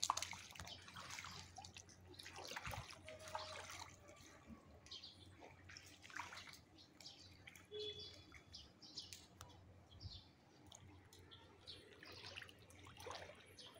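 Faint water sounds of floodwater, small splashes and drips coming irregularly, with a few brief bird chirps over a low steady hum.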